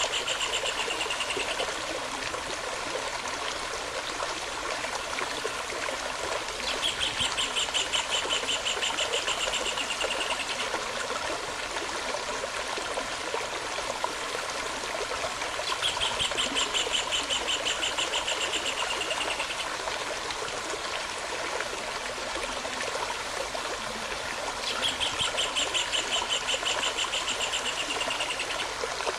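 Steady rush of a flowing stream, with a bird singing a rapid, slightly falling trill about three to four seconds long. The trill repeats in the same way roughly every nine seconds.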